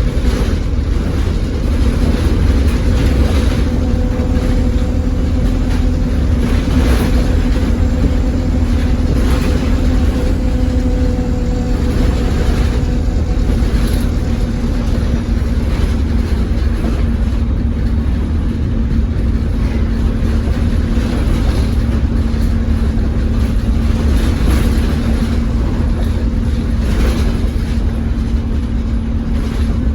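ADL Enviro200 single-deck bus on the move, heard inside the cabin: steady engine and road rumble with a steady hovering whine over it, and short rattles and knocks from the worn bus body every few seconds.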